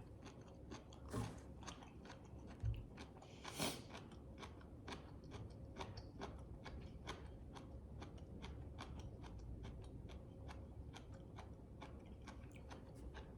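A person chewing food close to the microphone: a steady run of soft, wet mouth clicks, with a few louder bites or crunches in the first four seconds.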